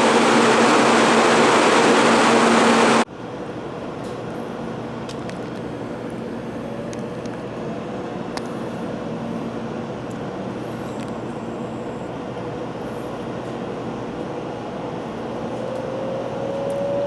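800 series Shinkansen running, heard from inside the passenger car. Loud rushing running noise with a steady hum drops off sharply about three seconds in to a quieter, steady rumble. Near the end a faint whine rises in pitch, like the traction motors as the train picks up speed.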